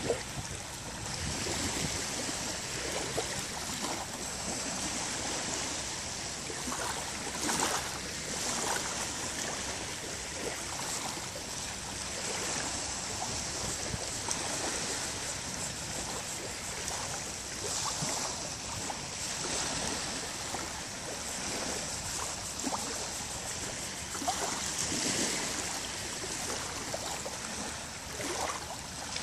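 Small, calm sea waves lapping onto a sandy beach: a steady wash of water that swells a little now and then.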